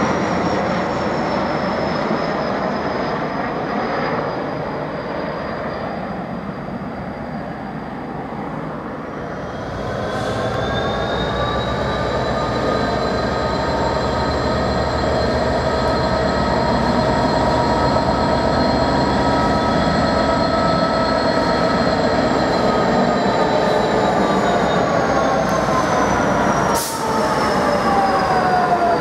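Dash 8 Q400 turboprop airliner passing overhead on approach, a whine slowly falling in pitch; then, about ten seconds in, a Class 66 diesel locomotive with its two-stroke V12 comes through hauling empty container wagons, a steady engine drone that falls in pitch as it passes near the end.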